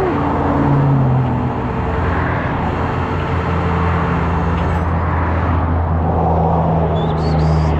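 A truck engine running steadily, a low even hum, under the constant rush of heavy freeway traffic passing close by.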